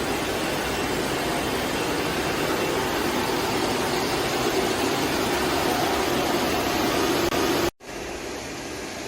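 Steady machine noise from a CNC six-sided multi-boring machine line running, a dense rushing sound with a low hum in it. It breaks off for an instant near the end and goes on quieter.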